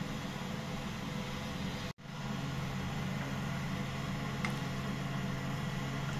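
Gas stove burner running on high flame under a pan of milk: a steady rushing noise with a low hum. The sound drops out for an instant about two seconds in.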